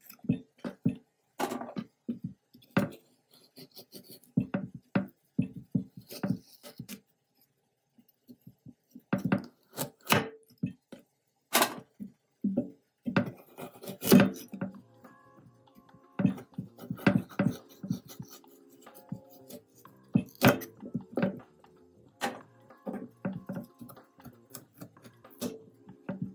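Kitchen knife chopping raw carrots on a wooden cutting board: irregular single knocks of the blade through the carrot onto the board. Soft background music comes in about halfway through.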